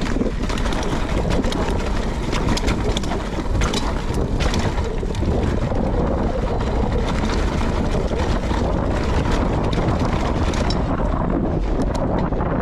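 Mountain bike rolling down a rough dirt trail: a steady rush of wind on the GoPro's microphone, with frequent clicks and knocks from the bike and tyres going over rocks and roots.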